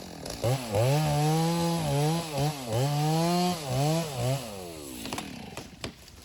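Two-stroke chainsaw cutting into a dead ash tree, its engine speed dipping and recovering several times under load, then dropping away about four and a half seconds in. A few sharp cracks and snaps follow near the end.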